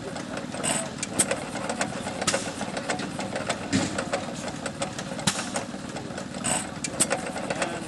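Small antique stationary hit-or-miss engine running, its steady mechanical clatter broken by sharp, irregularly spaced pops and clicks.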